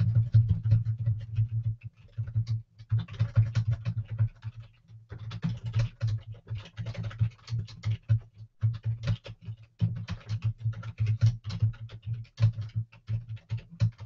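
Rapid typing on a computer keyboard, a dense run of keystroke clicks in bursts with brief pauses about two, five and eight and a half seconds in.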